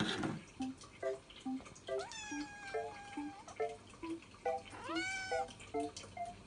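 Munchkin kitten meowing twice to beg for food: a long drawn-out meow about two seconds in, then a shorter meow that rises and falls about five seconds in.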